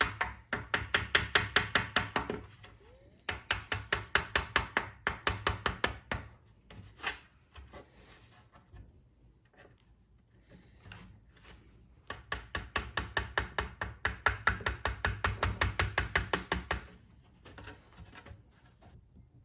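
Rapid tapping on a fibreglass mold, about eight knocks a second, in three bursts of a few seconds each, as a carbon-fibre mudguard is worked free of the mold.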